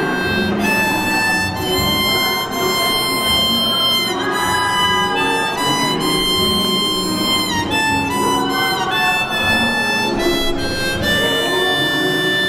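Harmonica playing a slow tune in long held notes, with a couple of notes bent down in pitch.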